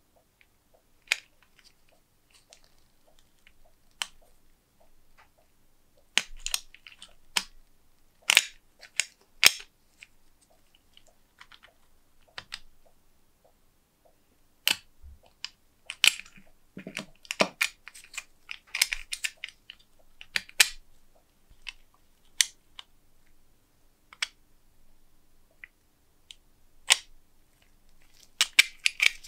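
Irregular metallic clicks and clacks from the open works of an antique door lock being worked by hand: the key turning and the latch bolt and levers sliding and snapping back under spring tension. The clicks come one at a time with pauses between them and bunch together near the end.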